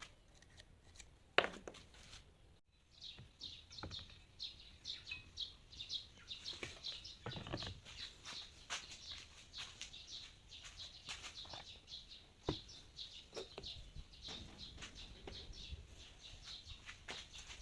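Small birds chirping in quick, repeated short notes, with a sharp knock about a second in and a few soft knocks scattered through.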